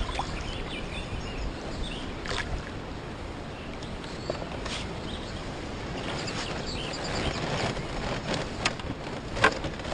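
Steady wash of water and wind noise beside a small boat, with a few brief splashes from a hooked pike at the surface.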